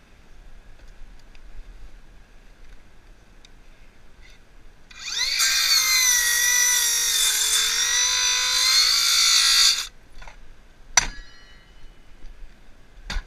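Red cordless power saw spinning up about five seconds in and cutting into the rotted wooden roof beams of an RV for about five seconds. Its whine sags under load and rises again before it stops. A sharp knock follows about a second later, and another near the end.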